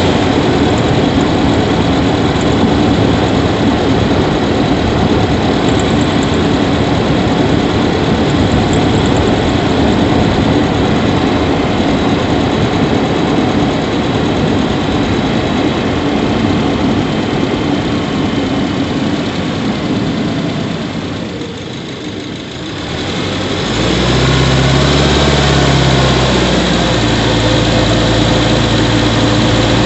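Subaru Levorg 1.6GT-S's 1.6-litre turbocharged flat-four heard from inside the engine bay, running loud and steady with a rushing intake noise. About three-quarters of the way through the sound dips briefly, then settles into a lower, even engine hum.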